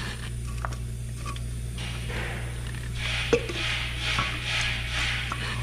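Rubbing and scraping of shock absorber parts being handled and fitted by hand, with a few light clicks and one sharper knock about three and a half seconds in, over a steady low shop hum.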